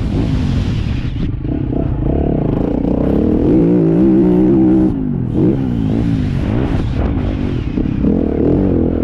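Motocross bike engine at race speed, revving up and backing off in repeated rising and falling surges, with a short dip about five seconds in.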